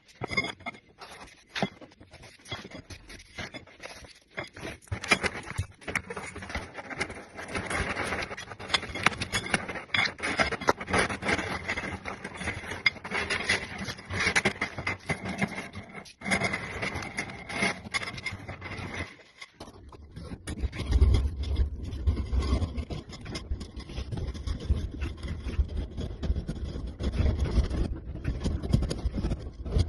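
Irregular scraping and clicking handling noises, then, about two-thirds of the way through, a steady low rumble.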